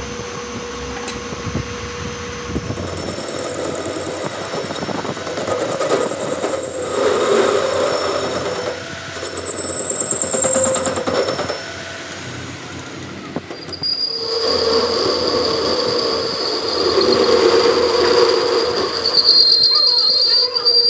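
Metal lathe facing the steel end of a truck axle flange, the cutting tool squealing against the metal over the running machine, with high tones that come and go and grow loudest in the second half.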